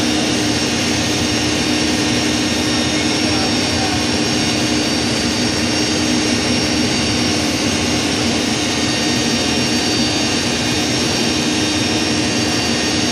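Backhoe's diesel engine running steadily at a constant speed, a loud, even drone with a steady hum.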